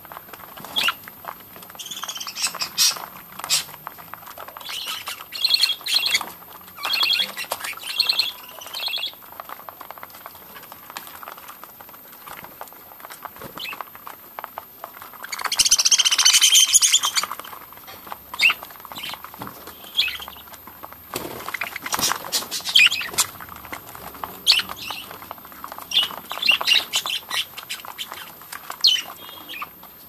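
A flock of budgerigars chattering with short high chirps while pecking seed from a plastic dish, with many small sharp pecking clicks. About halfway through comes one louder, harsh burst lasting a second or so.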